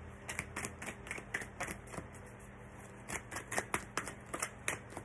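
A deck of tarot cards being shuffled in the hands: a run of quick, irregular card snaps and flicks, several a second, with a short lull a little past halfway.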